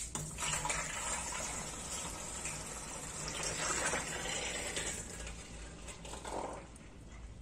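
Thick homemade liquid soap pouring in a heavy stream from a plastic basin into a plastic drum: a steady gushing, splashing pour that weakens near the end.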